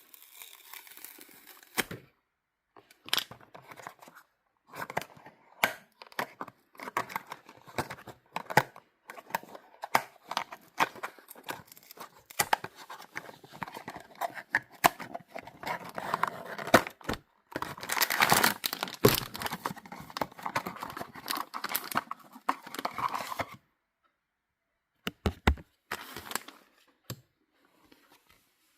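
Toy packaging being torn open and crinkled by hand, a dense run of rustling and tearing with sharp clicks, busiest past the middle, then a short pause and a few last clicks near the end.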